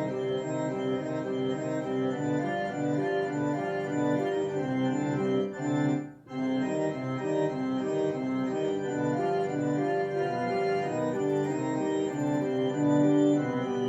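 Roland FP-30 digital piano playing one of its organ voices: held chords and melody notes, with a brief break about six seconds in.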